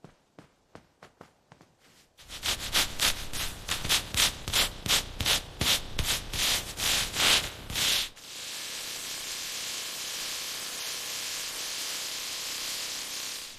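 Rhythmic scrubbing strokes of a brush on the car's dirty bodywork, about three a second, faint at first and loud from about two seconds in. About eight seconds in they give way to a steady spraying hiss.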